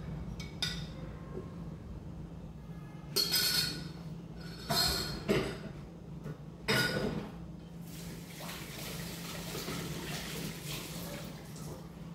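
Kitchen sink tap running while dishes and a glass jar are rinsed: three short bursts of splashing and clinking a few seconds in, then a steady stream of running water from about eight seconds.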